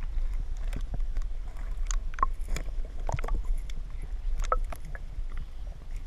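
Flowing river water heard through a submerged camera: a steady, muffled low rumble with scattered short clicks and ticks.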